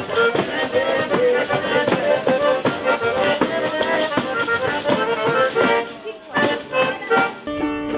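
Traditional Calabrian dance tune played on an organetto (small diatonic button accordion), with a tamburello frame drum beating and jingling along. About half a second before the end it cuts abruptly to a different passage with a plucked string instrument over a held low tone.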